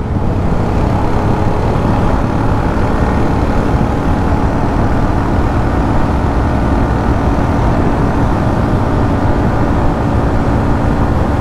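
Hero Xtreme 125R motorcycle riding at a steady speed, heard from the rider's seat: the small single-cylinder engine's even running under a steady rush of wind on the microphone.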